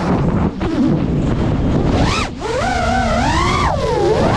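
5-inch FPV quadcopter's brushless motors and propellers whining, the pitch sliding up and down as the throttle changes through flips and rolls, over wind buffeting the onboard camera's microphone. The whine briefly drops away twice, about half a second in and just after two seconds in.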